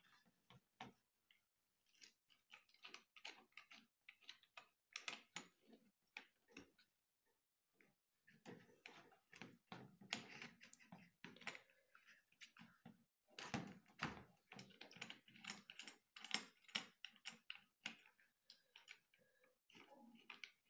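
Faint, irregular clicks and rustles of hands handling electrical wires and a plastic socket and switch inside a cardboard box, as the wire ends are fitted into the terminals.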